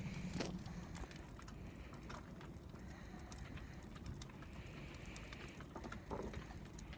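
Wood fire crackling in a fireplace: faint, irregular small pops and snaps over a low rumble, with a slightly louder knock about six seconds in.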